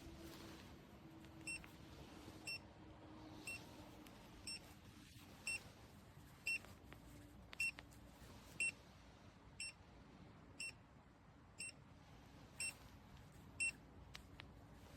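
5TH WHEEL V30PRO electric scooter's turn-signal beeper sounding short high beeps about once a second, thirteen in all, stopping shortly before the end.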